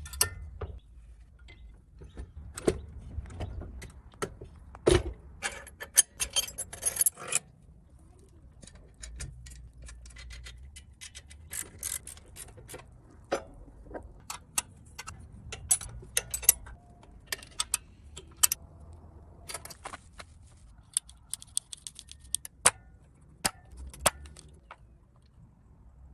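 Hand tools and small metal parts being handled on a workbench: scattered metallic clicks, clinks and taps, with a denser run of rapid rattling clicks about six seconds in and again near the end.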